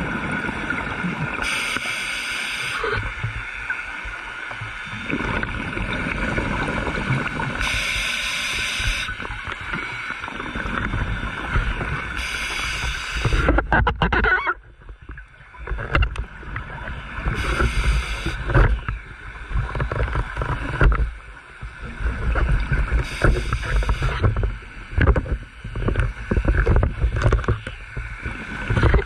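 Scuba regulator breathing heard underwater: a hissing inhalation about every five to six seconds, with rumbling, crackly bubbles of exhaled air between breaths. A faint steady hum runs underneath.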